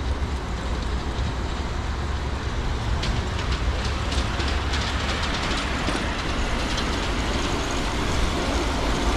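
Ride-on miniature train rolling along an elevated track, its wheels clicking over the rail joints from about three seconds in and getting slowly louder as it approaches, over a steady low rumble.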